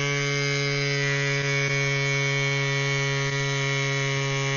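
CYCPLUS AS2 Pro battery-powered mini bike pump running, a steady buzzing hum at a constant pitch, as it inflates a road bike tyre toward its 75 psi preset.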